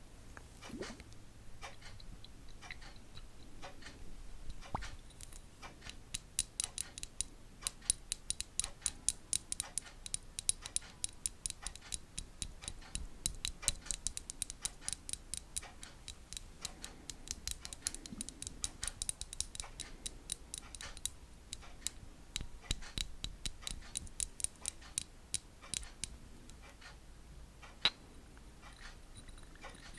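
Light, sharp clicking repeated steadily at a few clicks a second, made as an ASMR trigger. It builds up about six seconds in and thins out near the end.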